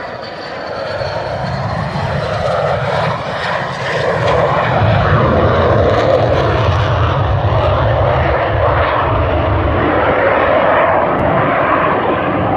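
Military jet aircraft flying low past: the engine noise builds over the first few seconds, with a high whine falling in pitch near the start, then stays loud and eases slightly near the end.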